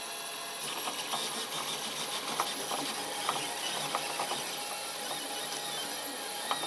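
Protomaker Black Sprint FDM 3D printer running a print: its stepper motors whir steadily as the print head moves, with scattered small clicks.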